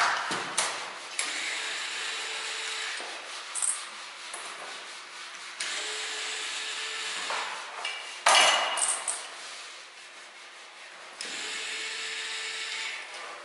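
Hand tool scraping and rubbing on the tops of large can capacitors in stretches of a second or two, with sharp clunks at the start and about eight seconds in.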